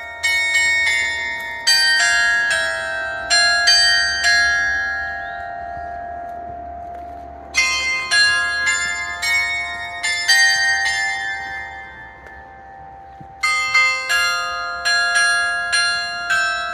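Elementary school's 5 p.m. bell chime playing a melody of struck bell tones, each note ringing on. It comes in three phrases, with a pause of a couple of seconds where the notes die away before each new phrase.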